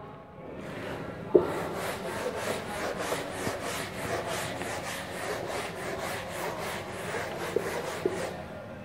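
A wooden-backed duster scrubbing marker off a whiteboard in quick back-and-forth strokes, about four a second. A sharp knock about a second and a half in, as the duster meets the board, is the loudest sound.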